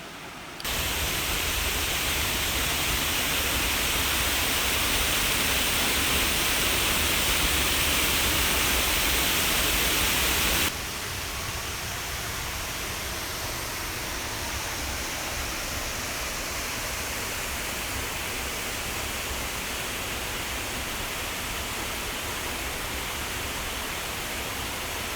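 Steady rush of water falling over a weir and waterfall on a small river. It is louder for the first ten seconds, then drops suddenly to a slightly quieter rush for the rest.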